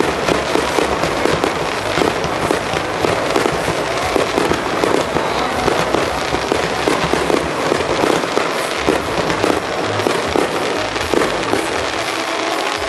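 Starmine fireworks barrage: a dense, continuous rattle of bangs and crackling bursts, several each second, with no let-up.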